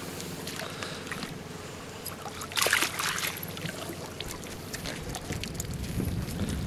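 Landing net lifted out of the lake with a pickerel in it: a splash about two and a half seconds in, then water pouring off the mesh and scattered clicks and knocks as the net is brought into the boat.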